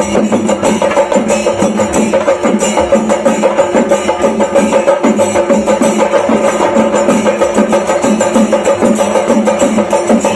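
Chenda melam: an ensemble of chenda drums beaten fast and densely with sticks, loud and without pause.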